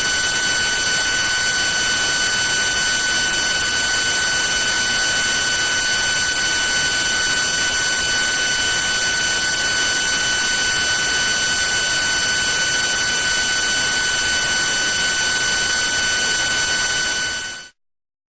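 NSK HTS-1500S high-speed CNC spindle running at a steady speed: a constant high-pitched whine over a hiss. It cuts off near the end.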